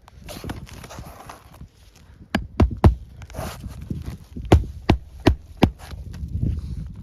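Hammer strikes nailing an asphalt roof shingle back down. Faint shuffling comes first, then three quick sharp blows and, a couple of seconds later, four more.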